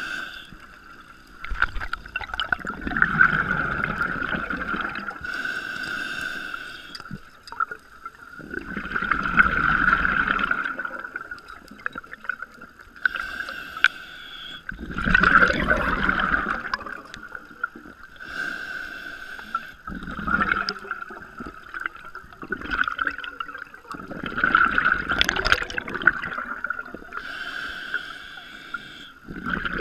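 Scuba diver breathing through a regulator underwater: a short hissing inhale, then a longer bubbling exhale, repeated about four times. A steady high whine runs underneath throughout.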